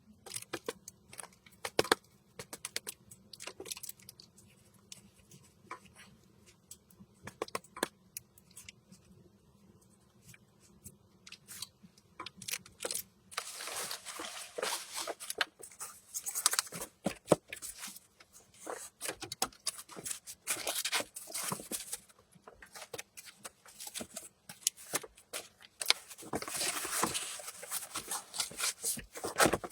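Someone tidying the inside of a small hut: scattered knocks and clicks of things being handled and set down, then, from about halfway through, repeated bursts of rustling and scraping.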